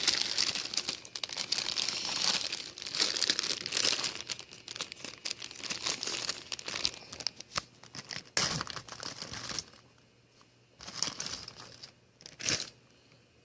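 Packaging being torn open and crinkled by hand, rustling steadily for about ten seconds, then stopping, with two brief rustles near the end.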